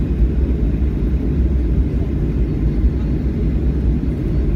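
Steady low rumble inside the cabin of a Boeing 737 jet airliner taxiing after landing: engine noise and the rolling of the wheels over the taxiway.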